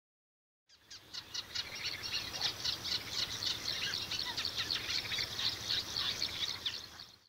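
A chorus of songbirds chirping and trilling over one another, fading in about a second in and fading out near the end.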